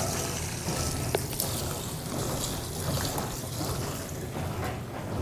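Electrolux LPE16 washing machine running: water swishing and trickling over a steady low motor hum, with a few light clicks.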